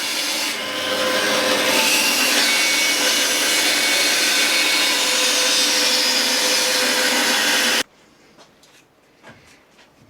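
Power saw cutting wood, a loud steady rush with a faint steady hum under it, which cuts off suddenly near the end. A few faint light knocks follow.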